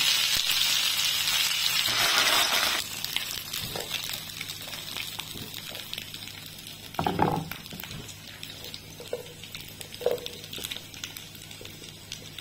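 Chestnuts sizzling in butter in a frying pan, the sizzle cutting off sharply about three seconds in. After that, a spatula scrapes and knocks softly as the chestnuts are moved onto a plate, with the loudest knock about seven seconds in and another about ten seconds in.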